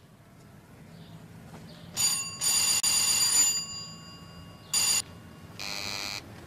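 A bell ringing, most likely a doorbell: a short ring about two seconds in, a longer ring of about a second, another short ring, then a shorter, buzzier ring near the end.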